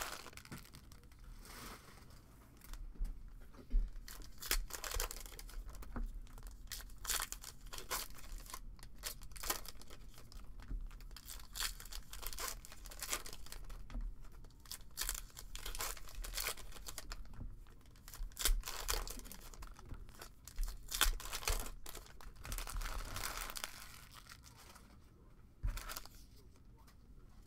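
Trading card packs being torn open and their wrappers crinkled, a run of short noisy bursts, with cards handled in between.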